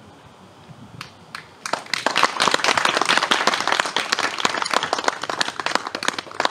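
Audience applause: a couple of single claps about a second in, then many people clapping together for several seconds, thinning out near the end.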